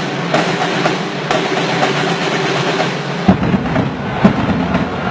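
Drums beaten hard within a dense, loud crowd din, with a few sharper bangs about three and four seconds in.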